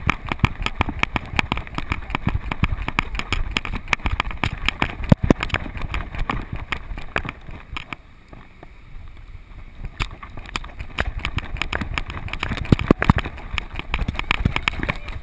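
Shallow seawater splashing and sloshing around a miniature schnauzer's paws as it runs, heard close from a camera strapped to the dog: a fast, uneven run of splashes and knocks over a low rumble.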